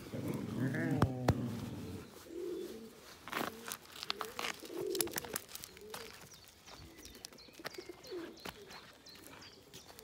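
A pigeon cooing over and over, soft and low, with scattered clicks of footsteps on gravel. A louder low groan fills the first couple of seconds.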